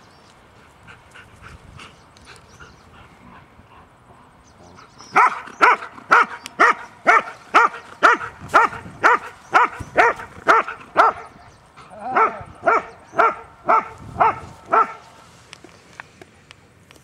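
A dog barking over and over, about two sharp barks a second, after a few seconds of fainter yips. There is a short break partway through, and the barking stops shortly before the end.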